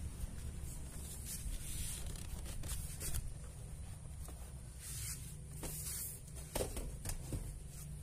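Foam yoga mat rubbing and scraping against a car door's inner panel as it is pushed into place, with several light knocks, over a steady low rumble.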